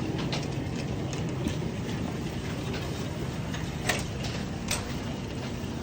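Supermarket background noise: a steady low rumble with scattered small clicks and knocks, two sharper clicks about four seconds in.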